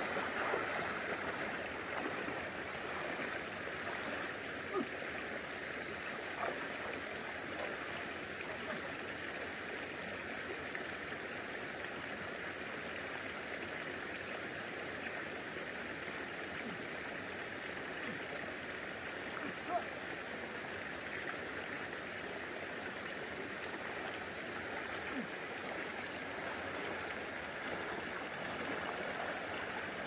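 Shallow mountain stream running over a rocky bed: a steady rush of water. Near the start and again at the end, legs in chest waders splash through the water, with a few faint knocks in between.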